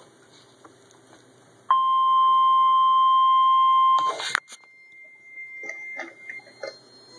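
NOAA Weather Radio's 1050 Hz warning alarm tone played through a receiver's speaker: one steady, loud, high beep lasting a little over two seconds. It starts about a second and a half in, cuts off sharply with a click, and announces the tornado warning broadcast that follows.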